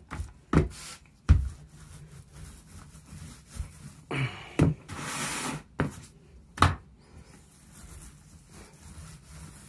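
Small paint roller and paint bucket being handled while rolling paint: a run of sharp knocks and clatters over the first seven seconds, with a short scraping rasp about five seconds in, then quieter.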